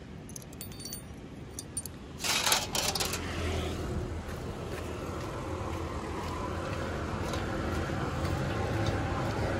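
A few light metallic clinks of spanners and bolts being picked up, a brief loud noise about two seconds in, then a steady low vehicle rumble that slowly grows louder.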